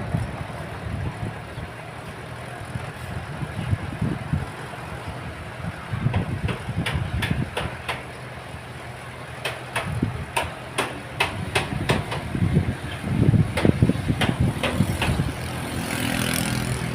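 Engine of a heavy earthmoving machine running and pulling harder and easing off in turns. In the second half comes a series of sharp metallic clanks.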